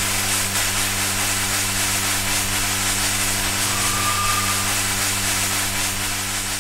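Loud steady rushing hiss over a low steady hum, with a brief faint high tone about four seconds in.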